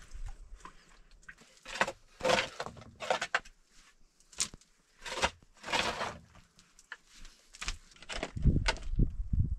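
Scattered scrapes and knocks of stone and soil being handled. About eight seconds in, a pick starts striking stony earth with repeated dull, heavy thuds.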